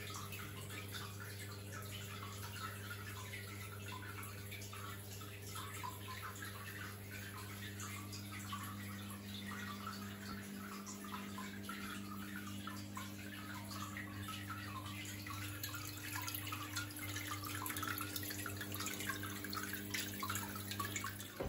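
Aquarium water trickling and bubbling at the surface by the filter, with a steady low electric hum from the tank's pump underneath.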